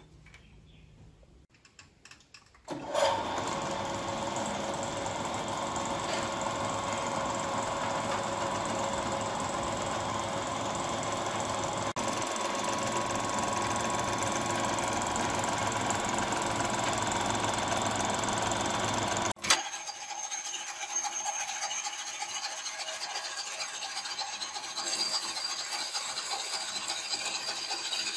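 Restored 1920 American Junior metal lathe running on its electric motor: a steady mechanical whirr and rattle of belt, pulleys and gears. It starts suddenly about three seconds in, and about two-thirds of the way through it breaks off with a sharp click into a thinner, quieter running sound.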